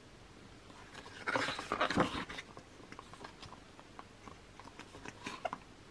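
Glossy photobook pages turned and handled: a paper rustle a little over a second in, then faint light rustles and taps.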